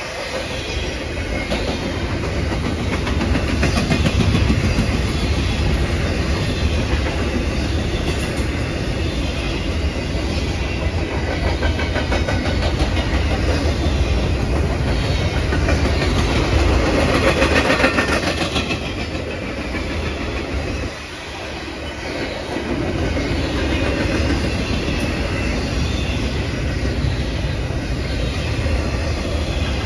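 Double-stack intermodal freight train's well cars rolling past close by: a steady low rumble with dense rapid clicking of steel wheels on the rails. It dips briefly about two-thirds of the way through, then carries on.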